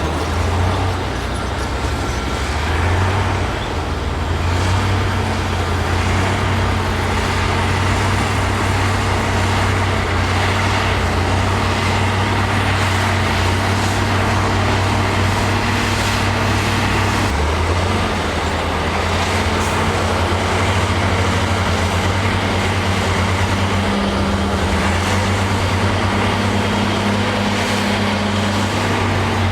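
Heavy diesel earthmoving machinery working: a deep, steady engine note that shifts pitch twice, over a broad noisy rumble.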